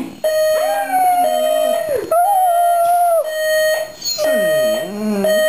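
Dog howling along to an alarm clock's steady electronic tone: two long howls, the second held level, then a lower call near the end whose pitch dips and rises again.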